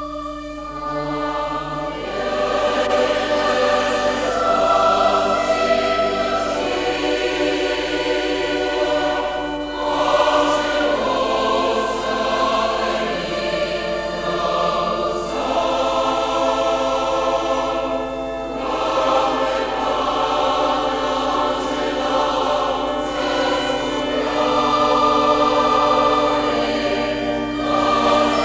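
Large mixed choir of men's and women's voices singing a sacred choral work in a church. It swells over the first couple of seconds, then sings long held phrases with short breaks between them.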